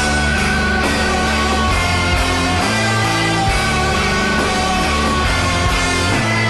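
Background rock music with electric guitar and a steady bass line.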